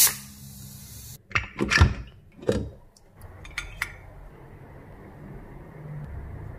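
A steel spoon and a plate clattering: a quick run of knocks, then a few light ticks.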